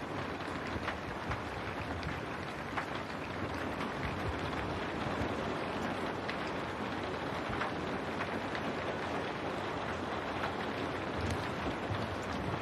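Steady rain against window glass: a dense even hiss with scattered sharper drop ticks and a low rumble underneath.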